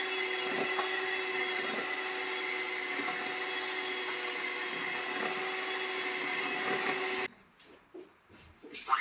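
Handheld electric mixer running steadily with an even motor hum, its beaters working butter cake batter in a stainless steel bowl, then switched off abruptly about seven seconds in.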